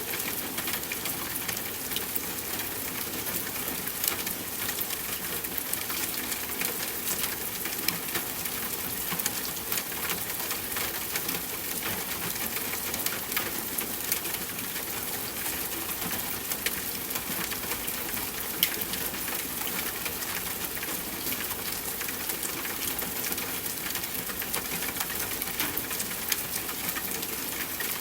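Steady rain falling, an even hiss with many individual drops tapping sharply and irregularly on a nearby surface.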